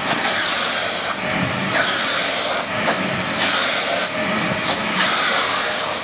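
Handheld vacuum cleaner running with a steady rushing whine as its brush nozzle is stroked through a cat's fur. The airflow sound shifts with each stroke, about once a second.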